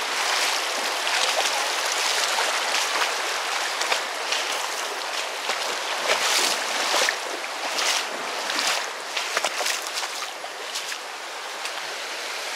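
Creek water rushing steadily, with irregular splashes in the water that cluster in the middle and thin out toward the end.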